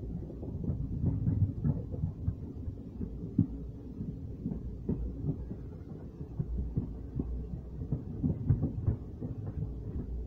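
Train running along the track, heard from inside the coach: a steady low rumble with irregular knocks and thuds from the wheels and carriage.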